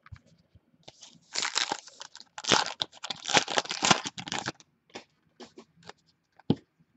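Crinkling and tearing of a trading-card pack wrapper for about three seconds, followed by a few light clicks and one sharper tick as the cards are handled.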